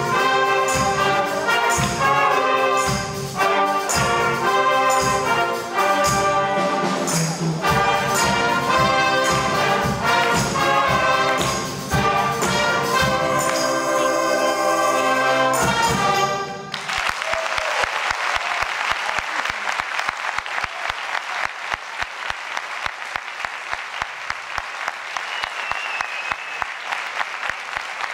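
A student ensemble, with brass to the fore, plays a loud rhythmic passage that stops abruptly about 17 seconds in. The audience then applauds steadily.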